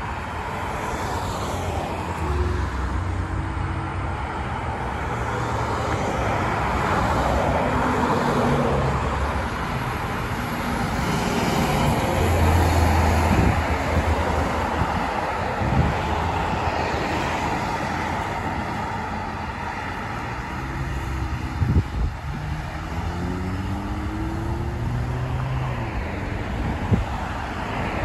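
Road traffic passing: the diesel engine of a 2002 Blue Bird International 3800 school bus goes by and pulls away, loudest about halfway through, with cars driving past. Later a vehicle speeds up with a rising engine note, and there are a few sharp knocks.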